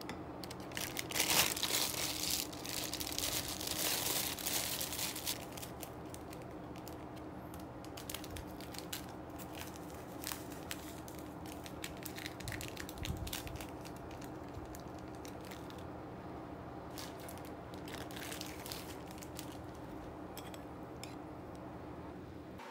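Plastic food packaging crinkling and rustling, loudest for a few seconds near the start, then scattered light clicks and taps of a metal spoon against a ceramic bowl.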